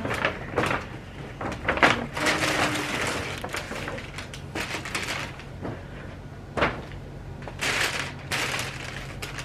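A paper delivery bag and the plastic takeaway bag inside it rustling and crinkling as they are handled, in several bursts with a few sharp crackles.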